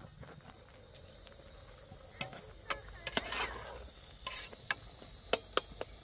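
Metal ladle clinking and scraping against a metal cooking pot as food is stirred: about eight sharp clinks through the second half, with a short scrape among them. A faint steady high hiss sits underneath.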